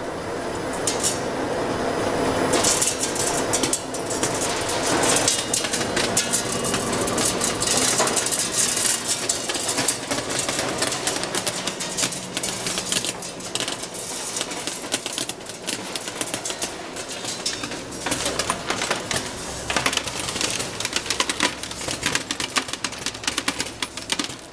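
Metal color sorting machine running on scrap metal: a dense, rapid clicking and rattling of metal pieces being fed, conveyed and ejected, with a hiss beneath. It builds up over the first couple of seconds, then keeps going busily.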